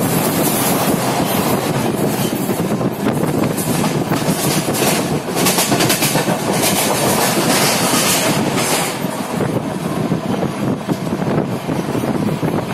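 Indian Railways passenger train (the Archana Express) running through a station without stopping, heard from on board. A steady rumble with the wheels clattering over rail joints and points, the clatter sharpest and busiest in the middle.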